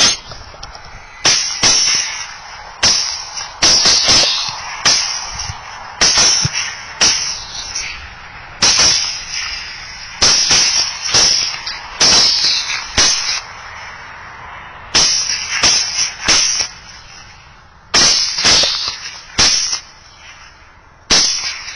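Several rifles firing at a group of wild hogs: dozens of sharp, loud shots in irregular quick strings, several shooters overlapping, each shot trailing off over about a second.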